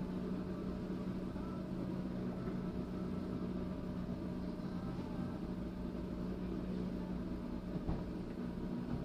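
Vehicle engine idling with a steady low hum, with a brief knock about eight seconds in.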